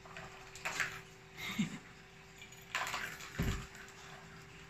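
Cats playing at a round cardboard scratcher whose plastic track holds small balls: a few short clatters and rattles, with a dull thump about three and a half seconds in.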